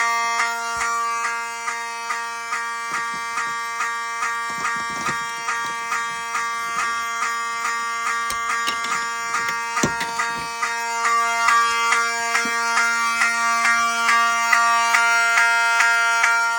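Fire alarm horns sounding together on a 4004 fire alarm system in general alarm after a pull station was pulled: a steady buzzing tone under a pulsing horn sound repeating about twice a second. A few knocks come through the middle.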